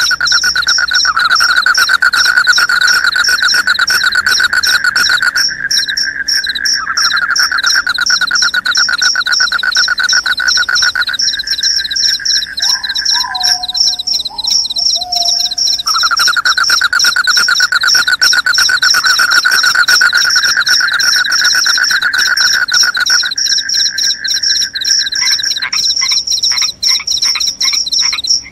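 Crickets chirping in a dense, continuous high-pitched chorus, with a lower pulsing trill that runs in long stretches and breaks off several times. A short, lower falling call sounds about halfway through.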